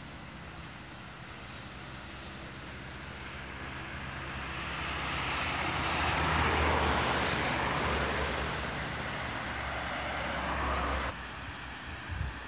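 A motor vehicle's engine running with a low hum and rushing noise. It grows louder over several seconds, holds, then cuts off abruptly near the end.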